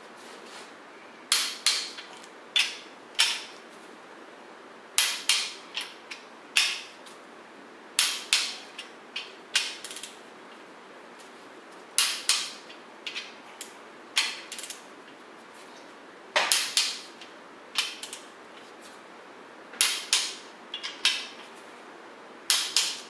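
Ratchet head of a torque wrench clicking in short quick groups every second or two as the main bearing cap bolts of a Mopar 440 big-block are tightened in steps toward 85 foot-pounds.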